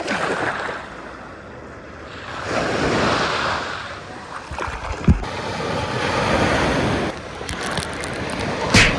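Sea waves washing in and out in swells, with wind buffeting the microphone. There is a brief thump about five seconds in.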